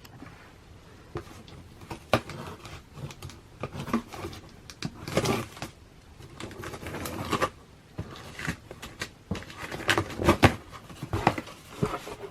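Cardboard sneaker box being opened and handled: scattered knocks, taps and short rustling scrapes of cardboard and packing.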